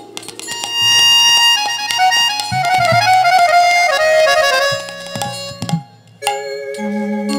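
Kirtan instrumental interlude: a harmonium playing held, reedy chords and melody over hand-drum strokes. The music drops away briefly near the end, then the held harmonium tones come back in.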